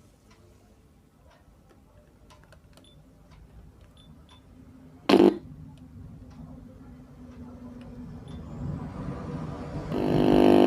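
Audio output from a repaired Sony Xplod car stereo played through a connected test speaker: faint clicks, one short loud thump about five seconds in, then a buzzing, many-toned sound from the speaker that grows louder over the last few seconds and holds steady.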